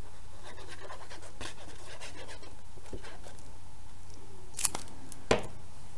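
Cardstock being handled while a liquid glue bottle's tip is rubbed across it: faint scratchy rustling over a steady low hum, with two sharp clicks less than a second apart near the end.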